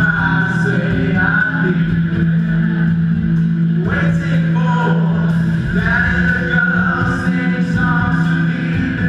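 Live band playing amplified music on stage, with sung vocals over drums and guitars and a held low note underneath.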